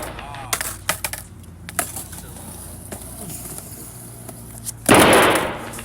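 Skateboard clacking against the ground in several sharp knocks in the first two seconds, over a steady low rumble. A loud rushing noise comes in about five seconds in and lasts about a second.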